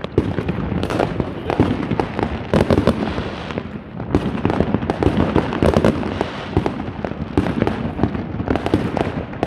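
Fireworks going off in a dense, unbroken barrage: many sharp bangs and crackles overlapping with no pause.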